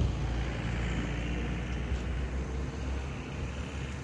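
Road traffic noise: a motor vehicle passing along the road, a steady rumble and hiss of engine and tyres.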